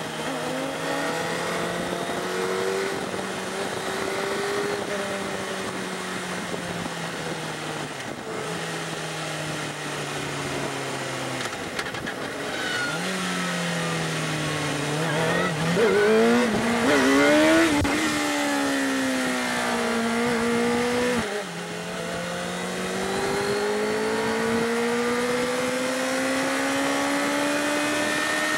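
Sport bike engine under way, its pitch rising and falling with the throttle over steady wind rush; it revs hardest, with quick up-and-down swings, about 16 to 18 seconds in, drops sharply just after 21 seconds, then climbs again.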